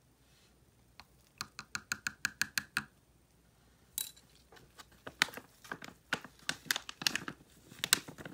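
Light tapping and clicking against a plastic mixing cup as mica powders are worked into the liquid: a quick run of ticks, about five a second, then more irregular sharp clicks and knocks.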